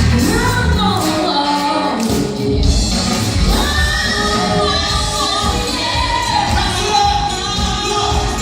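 A band performing a song live: a lead vocal holding long, wavering notes over the band's accompaniment.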